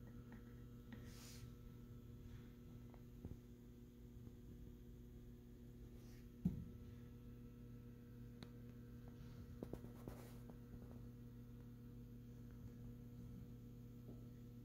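Faint steady electrical hum with a few small clicks and rustles of handling. One sharper knock comes about halfway through.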